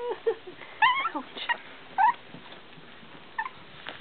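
Cavalier King Charles Spaniel puppies yipping and whimpering as they play: about five short, high, wavering cries, one falling in pitch, spread over the few seconds.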